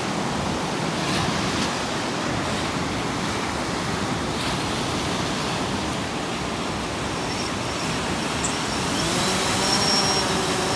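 Surf washing steadily on the beach. Near the end a DJI Phantom 4 quadcopter's motors start, rising in pitch into a whine as it takes off.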